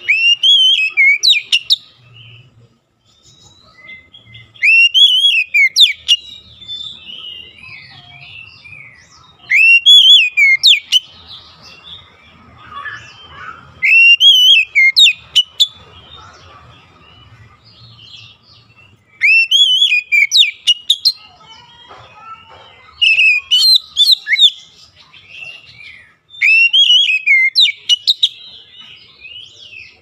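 Oriental magpie-robin singing: seven loud phrases of swooping whistled notes, each a second or two long and repeated about every four to five seconds, with softer chattering notes between.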